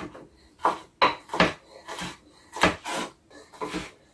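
Chef's knife mincing a jalapeño on a wooden cutting board: about ten uneven knocks of the blade striking the board, some in quick pairs.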